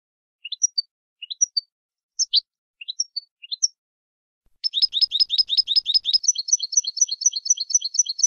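European goldfinch (Carduelis carduelis) singing: short rising chirps in pairs, then after a brief pause a fast trill that changes into a quick repeated two-note phrase and breaks off abruptly near the end.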